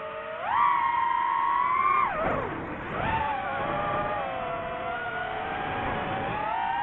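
DJI FPV drone's motors and propellers whining, the pitch rising sharply about half a second in, diving steeply near two seconds, then climbing again and wavering as the throttle changes during acro flying.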